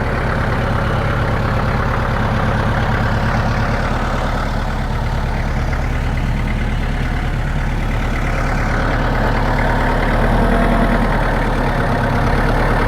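Farm tractor engine running steadily at a low, even speed while it moves a heavy concrete block.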